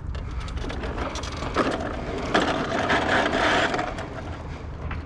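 Scraping, rustling and knocks as curbside junk is handled and shifted for loading, busiest in the middle, over a low steady rumble.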